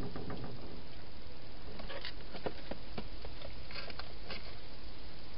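Wild European hedgehog moving about in a plastic feeding box: a soft scuffle at the start, then a scatter of small irregular clicks and taps from about two seconds in, over a steady hiss.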